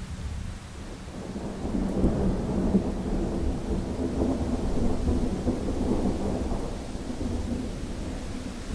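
A roll of thunder that builds about a second and a half in, rumbles for several seconds, and dies away near the end, over steady rain.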